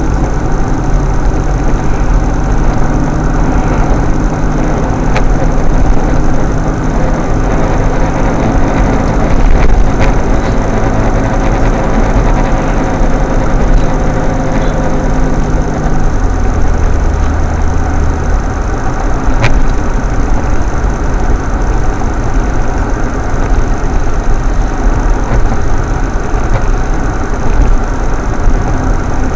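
Car engine and road noise heard from inside the cabin while driving. About halfway through, the engine note changes to a lower, steady drone.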